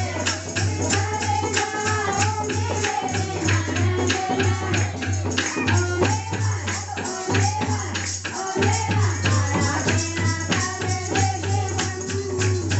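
Hindu devotional kirtan music: a melody with a singing voice over a fast, steady hand-percussion beat with jingles and a constant low bass.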